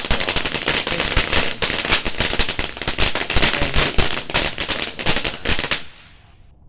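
Gargantua fountain firework spraying with a dense rapid crackle over a steady hiss, cutting off abruptly about six seconds in as the fountain stops.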